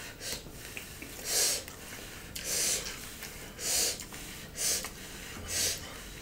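Close-miked breathing through the nose while chewing a mouthful of food: a short hissy breath about once a second, six in all.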